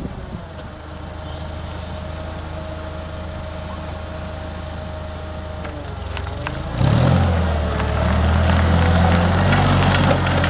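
Heli CPYD25 propane forklift engine running steadily at a low speed, then revving up suddenly about seven seconds in and holding the higher speed as the forklift drives off.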